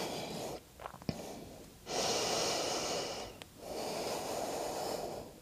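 A woman breathing close to the microphone: a short breath at the start, then two long, slow breaths.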